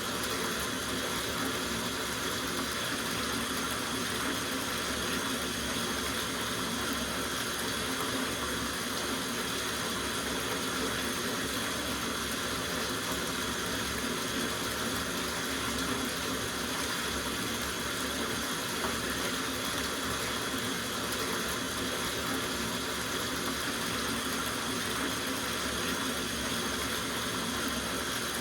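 Tap water running steadily into a soaking bathtub, an even rush of splashing water.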